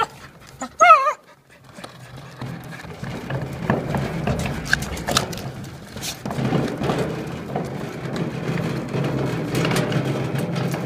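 Dog growling steadily while it bites and paws at a wheelbarrow's rubber tyre, with a short, high, wavering yelp about a second in and small clicks of teeth and claws on the wheel.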